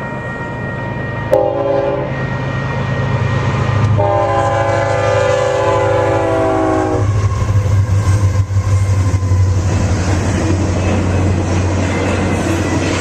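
Union Pacific diesel freight locomotive sounding its multi-tone air horn, a short blast followed by a long one of about three seconds, then the locomotive's diesel engine rumbling loudly as it passes, with wheel and rail noise.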